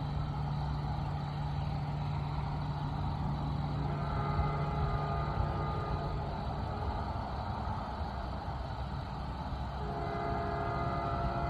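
Diesel locomotive running light with a steady engine hum; chords of sustained horn tones sound faintly in the middle and return louder near the end.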